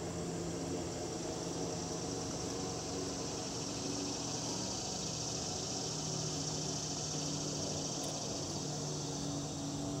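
Steady outdoor ambience: an even, high-pitched insect chorus, over a faint low, steady hum.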